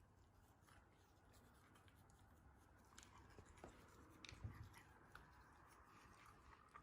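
Faint scratching and light clicking of a toothbrush scrubbing a dog's teeth, with a soft thump about four and a half seconds in.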